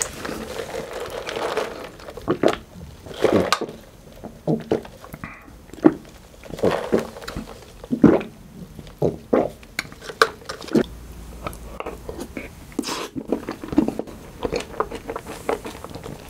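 Close-miked eating sounds: chewing and swallowing soft cream cake with wet smacks and clicks, and a sip of an iced drink through a straw.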